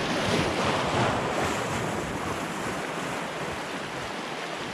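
Small waves washing and splashing over shoreline rocks close to the microphone, with wind on the microphone. The wash is loudest in the first second or so and slowly eases off.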